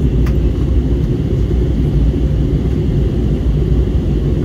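Steady low rumble of an Airbus A321neo's passenger cabin in flight on descent: engine and airflow noise heard through the cabin. A brief click about a third of a second in.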